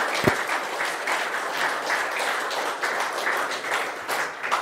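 Audience applauding, with a single low thump just after it starts; the clapping fades away near the end.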